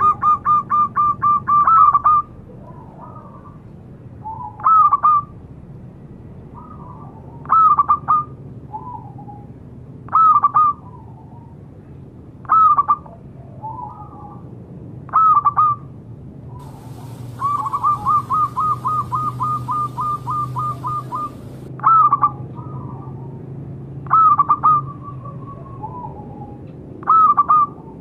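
Zebra dove (perkutut) cooing: short coo phrases about every two to three seconds, with two longer runs of rapid staccato coos, one at the start and one about two-thirds of the way through. Fainter coos sound between the phrases.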